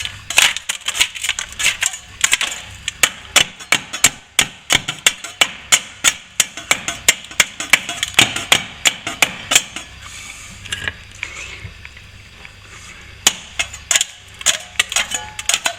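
A hand tool chipping and knocking loose plaster off a wall-to-ceiling joint: rapid sharp knocks, about three or four a second, pausing for a few seconds near the middle before starting again.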